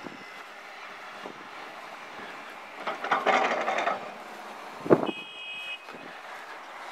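Road-construction site noise: a rushing swell about three seconds in, a sharp thump about five seconds in, and right after it a short high beep.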